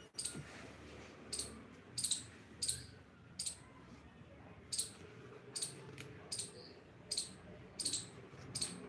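About a dozen short, sharp, high-pitched clicks, irregularly spaced at roughly one or two a second, over faint background hiss.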